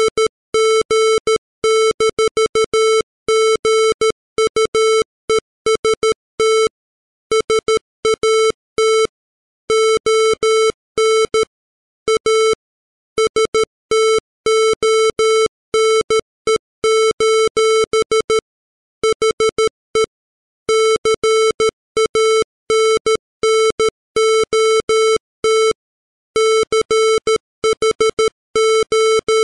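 Computer-generated Morse code: a 440 Hz square-wave tone keyed on and off in dots and dashes at 13 words per minute, spelling out text, with longer gaps of about a second between some groups.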